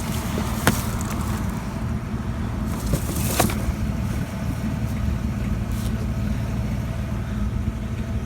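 Vehicle engine idling steadily, with a couple of sharp clicks or knocks, one about a second in and another about three and a half seconds in.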